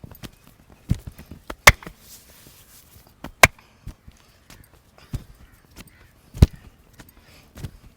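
Palms and hand edges striking skin during a head and body massage: about ten sharp slaps and chops at uneven intervals, two of them much louder.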